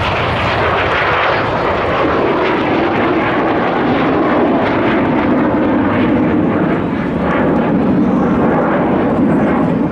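Jet engines of Blue Impulse Kawasaki T-4 trainers running loud and steady, a continuous rushing jet roar with a lower drone settling in a few seconds in.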